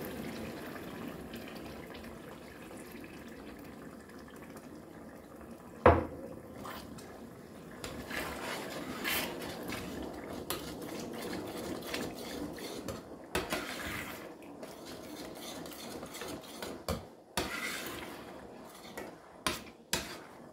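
A metal spoon stirs tomato sauce in a stainless steel saucepan, scraping and clinking against the pan. There is one sharp knock about six seconds in, and the clinks come more often in the last several seconds.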